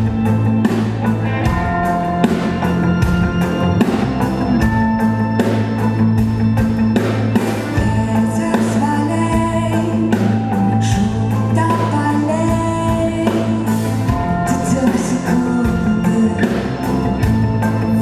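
Live rock band with a string section playing a song: drum kit keeping a steady beat under electric guitar, bass, violins and cello, with a woman singing the lead into the microphone.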